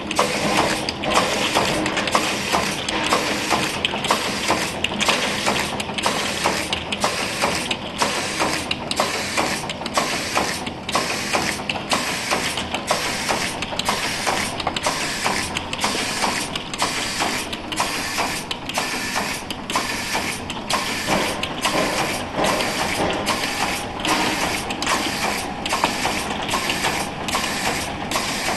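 Automatic cap liner inserting machine running, pressing paper or rubber liners into bottle caps. It makes a continuous mechanical clatter with a regular cycle, a little more than once a second.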